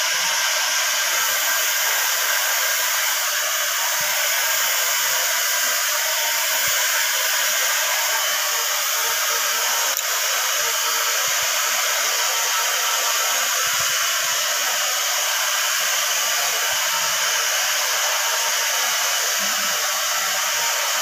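Electric hair dryer running steadily, blowing air with an even hiss.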